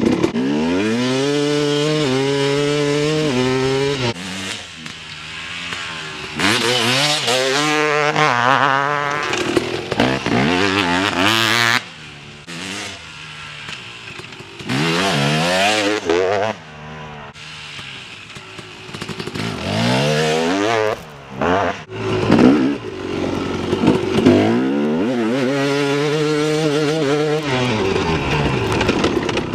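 KTM 250 SX two-stroke dirt bike engine being ridden, revving up under throttle, holding, then dropping back, several times over, with quieter stretches near idle in between.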